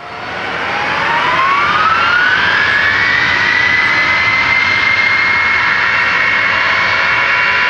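The four General Electric TF39 turbofans of a C-5 Galaxy spooling up to takeoff power: a high whine climbs steeply over the first three seconds or so, then holds steady as a loud scream over a broad rush of engine noise. The sound fades in at the start.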